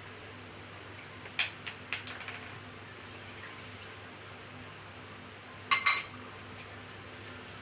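Cup and metal cooking pot clinking: four quick clinks just after a second in, then a louder, briefly ringing clank near six seconds, as cups of water are added to the pot for a herbal decoction.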